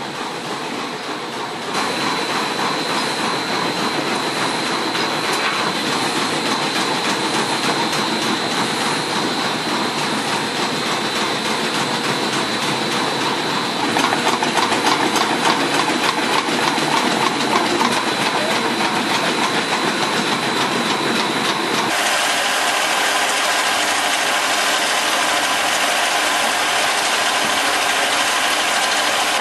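Old woollen-mill machinery running: a carding machine, with its hopper feeder of raw wool and its open gear train, clattering steadily under a high steady whine. About two-thirds of the way through, the sound changes to a yarn winding machine running with a steady hum.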